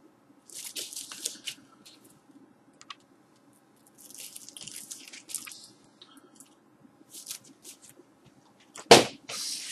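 Shrink-wrapped LP record being handled: the plastic wrap and cardboard sleeve crinkle and rustle in short bouts as the album is turned over, with one thump near the end.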